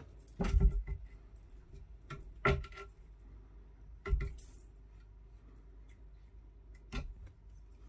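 Small jingle bell on a cat toy rattling in short bursts as cats bat and pounce on it, each burst with a soft thump. The bursts come about half a second in, at about two and a half seconds, at about four seconds and near the end.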